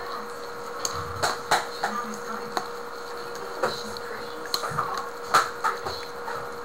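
A person eating from a bowl with a spoon: a scatter of light, irregular clicks and scrapes of the spoon against the bowl, with chewing between. A steady hum runs underneath.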